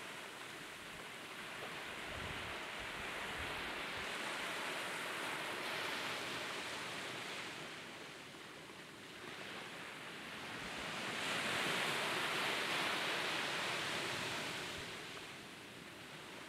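Small waves breaking and washing up a sandy beach. The surf's hiss swells and fades twice, loudest about twelve seconds in.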